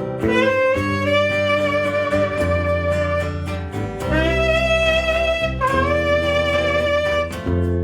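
Saxophone playing a melody of long held notes over a live band, with a bass line underneath.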